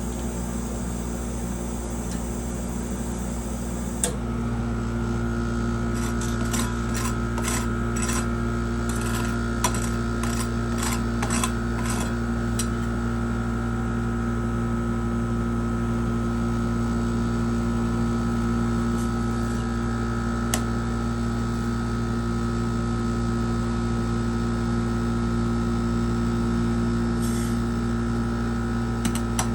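A steady electrical motor hum that steps up and gains a higher whine about four seconds in. Between about six and twelve seconds it is joined by a quick run of light metal clicks and taps, with a few single clicks later.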